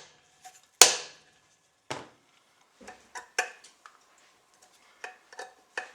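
Gentle tapping on the freshly fitted main ring gear of a UFO orbital sander attachment to seat it: two sharp knocks, about a second in and near two seconds, followed by a scatter of lighter clicks.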